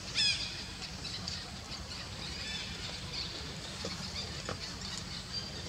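High-pitched animal calls: one short squeal just after the start, then faint, scattered chirps over a steady low background hum.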